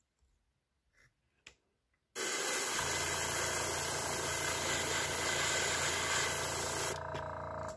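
Airbrush spraying paint in one long, steady hiss that starts suddenly about two seconds in and stops about seven seconds in, over the steady hum of the air compressor, which runs on briefly after the spray ends and then cuts off.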